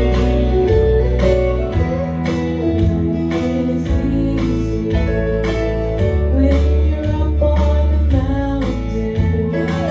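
Instrumental introduction of a country gospel song: acoustic guitar strumming in a steady rhythm over held bass notes.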